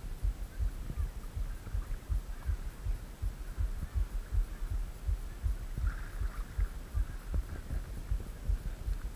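Low muffled thumps in a steady rhythm, about three a second, from a spinning reel being cranked and a rod twitched through a topwater walk-the-dog retrieve, carried through a body-worn camera.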